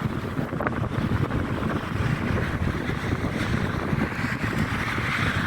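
Railway train running past, a steady rumble with wind buffeting the microphone; a hissing band grows stronger near the end.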